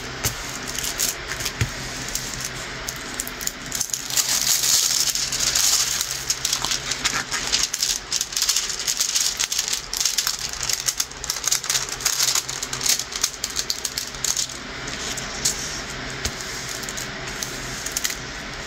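Rustling and crinkling of a stiff diamond painting canvas and its plastic cover film as it is stretched and flattened by hand, with many small crackles and clicks, busiest a few seconds in.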